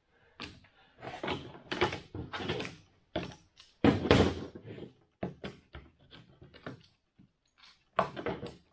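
Irregular knocks and clatter of clamps being handled and adjusted around a glued-up stack of bent wood strips while the strips are pressed flat. The loudest knock comes about four seconds in.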